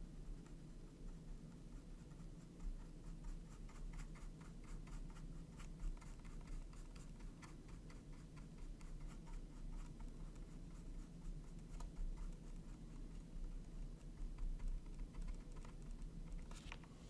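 Flat paintbrush scrubbing and dabbing paint onto a tiny textured canvas: a long run of faint, quick, scratchy strokes over a low steady hum.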